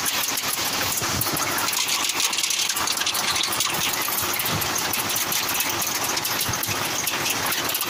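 Two-wheeler's engine running steadily while riding at low speed, under a steady rushing noise.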